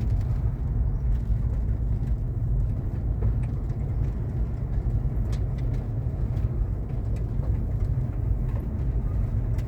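Car cabin noise while driving slowly: a steady low rumble of the engine and tyres on the road, with a few faint scattered ticks.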